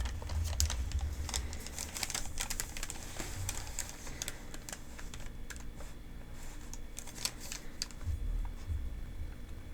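Close-up handling of a paper medication guide: irregular, crisp paper crinkles and small clicking taps.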